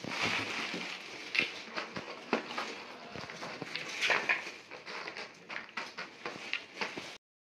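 Nuts being handled and set onto a tray, with many small sharp clicks and rattles of shells against each other and the tray, over a rustle of plastic bags. It cuts off suddenly near the end.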